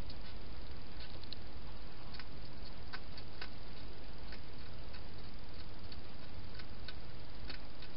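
Wild hedgehog feeding at a bowl inside a plastic feeding station: irregular, crisp clicks, about one to three a second, over a steady low hiss.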